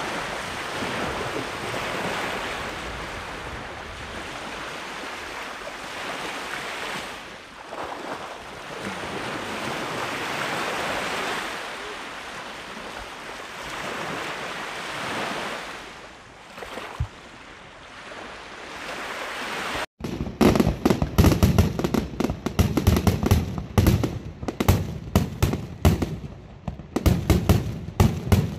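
Small lake waves washing onto a pebble beach, swelling and fading every few seconds. About two-thirds of the way in, it cuts suddenly to a fireworks display: a rapid, loud string of bangs and pops.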